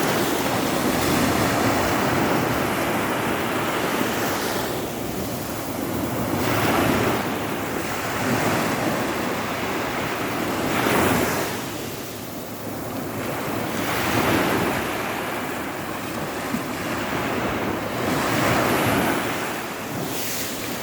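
Sea waves breaking on a beach: a continuous wash of surf that swells and falls back every three to four seconds as each wave comes in.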